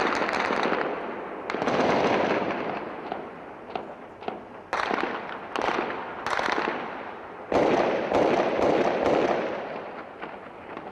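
Gunfire in the distance: several sudden volleys, about a second and a half, five, six and a half and seven and a half seconds in, each trailing off in a long echo off the surrounding buildings, with scattered single cracks between them. The firing dies away near the end.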